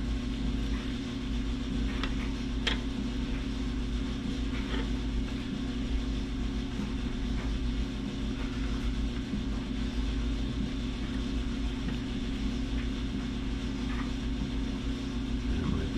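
A steady low hum with a buzzy edge, like a small motor or electrical hum, with a few faint light ticks.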